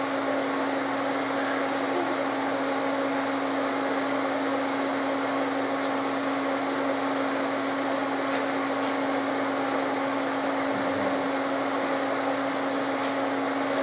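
Steady whirring hum of a running machine fan, with one constant low tone underneath.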